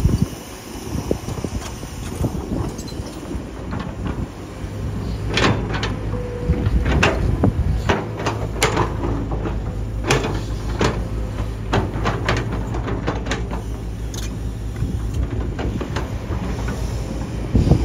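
Kobelco hydraulic excavator's diesel engine running under load while its steel bucket digs into soil and broken concrete, with repeated clanks and scrapes. The engine works harder from about four seconds in, and the clanks come thickest between about five and eleven seconds in.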